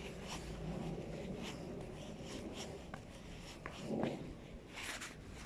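Footsteps on a pavement, about two a second, with scratchy rubbing from the handheld camera's microphone. There is a brief louder knock about four seconds in as the camera is swung around.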